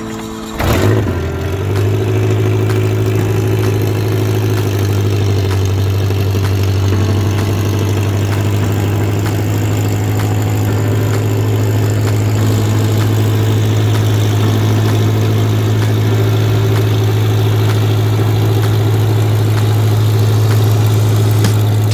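Fuel-injected 117-horsepower pusher engine of an Aventura II amphibious kit seaplane starting up about half a second in, then idling steadily with the propeller turning.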